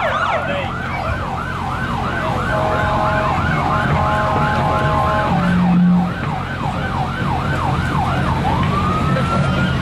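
Electronic vehicle siren cycling in a fast yelp, about three rising-and-falling sweeps a second. A steady three-note tone sounds over it for a couple of seconds in the middle. Near the end the siren changes to a slow rising wail.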